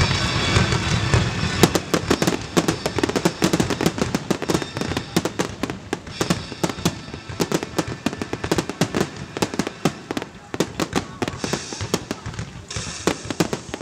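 Fireworks display going off: a rapid, uneven string of bangs and crackles, several reports a second, starting about a second and a half in.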